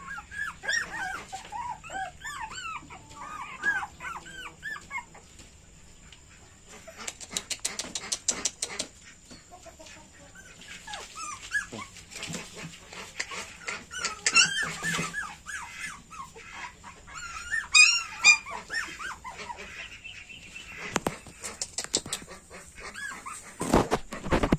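Several young puppies whining and whimpering in many short, high-pitched cries, in two spells with a lull between. Scattered rustling and a few knocks as they scramble about, the loudest knocks near the end.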